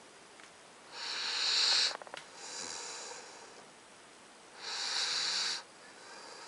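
Nine-week-old Alaskan Malamute puppy snoring: two loud, breathy snores about four seconds apart, each followed by a softer breath, with a few short clicks just after the first.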